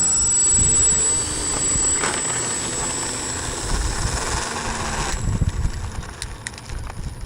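Radio-controlled Cessna trainer model airplane's motor running with a steady high whine, which drops away about five seconds in. Wind rumbles on the microphone underneath.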